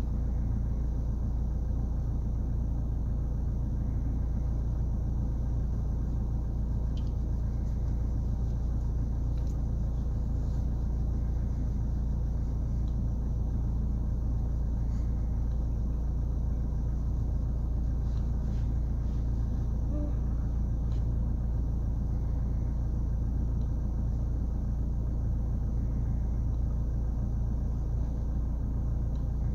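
Steady low rumble inside a car cabin, with the engine idling and the climate control running, and a few faint clicks.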